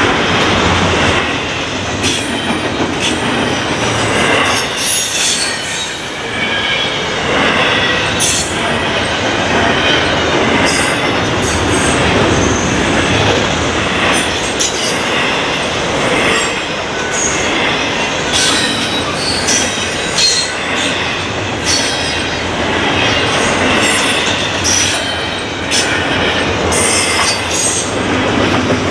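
Double-stack intermodal freight train rolling steadily past, its steel wheels running on the rails. High wheel squeal comes and goes, and irregular clicks mark the wheels crossing rail joints.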